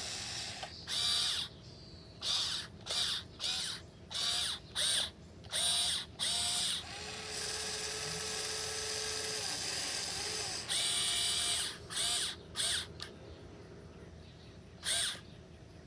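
1580 RC excavator's electric motors whining in about a dozen short bursts as its controls are worked in quick stabs, with a longer steady run of about three seconds in the middle and a few more bursts near the end.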